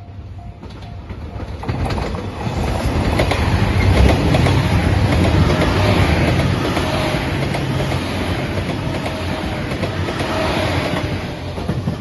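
JR Shikoku 2700-series diesel limited express train passing close by at speed, its wheels clattering over the rail joints. The noise builds in the first two seconds and is loudest about four seconds in. A level-crossing alarm rings a few times at the very start before the train drowns it out.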